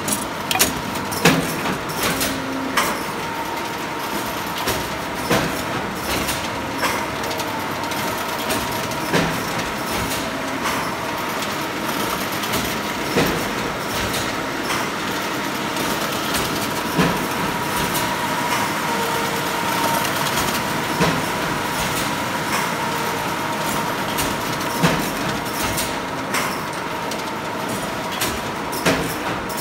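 Paper-finishing machine line running, its chain conveyors and pneumatic feeders moving sheets of card: a steady mechanical whir with a thin high hum and irregular sharp clacks and clicks.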